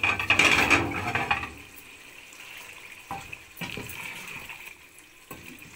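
Wooden spoon stirring a wet, simmering potato curry in a metal pot. The stirring is loud through the liquid for the first second and a half, then quieter, with a few light knocks of the spoon against the pot.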